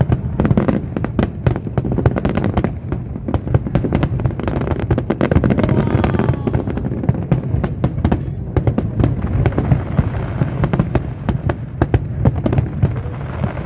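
Fireworks display going off without a break: a dense stream of sharp crackles and bangs over a continuous low boom of bursting shells.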